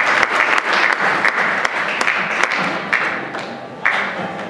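Audience applauding at a curtain call, a dense patter of many hands clapping that thins out and fades near the end.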